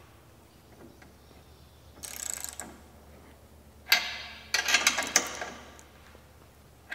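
Ratchet wrench clicking in two short runs as U-bolt nuts are tightened on a metal canopy bracket, with a sharp metal knock between them.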